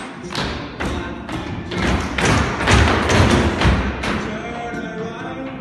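A run of irregular thumps and knocks on hollow portable school staging, heaviest in the middle. A song starts near the end.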